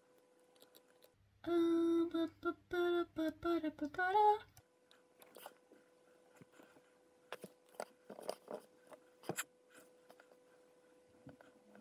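A short tune of a few held notes hummed by a woman's voice, ending on a rising glide. It is followed by scattered light clicks and taps from a laptop as she browses.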